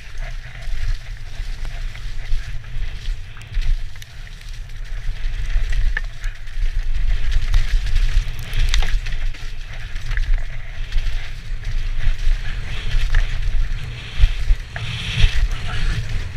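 Wind buffeting a helmet-mounted camera on a fast mountain-bike descent, a steady rumble, with tyres rolling over a rough, muddy dirt trail and scattered knocks and rattles from the bike. It grows a little louder about halfway through.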